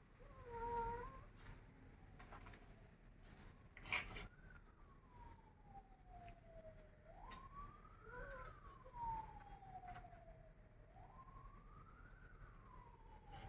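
Faint emergency-vehicle siren wailing, its pitch rising quickly and falling slowly about every four seconds. A short pitched call sounds near the start, and a sharp tap about four seconds in.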